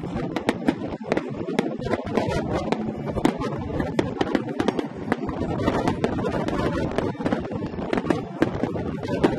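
Aerial fireworks bursting in quick succession: a continuous run of sharp bangs and crackles, several a second.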